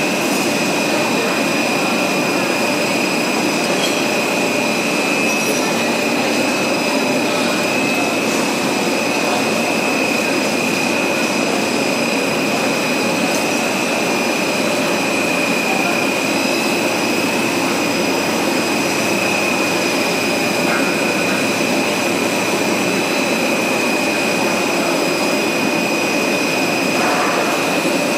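Stretch film casting line running at full production: a loud, steady machine noise from the extruder, motors and rollers, with a constant high-pitched whine over it.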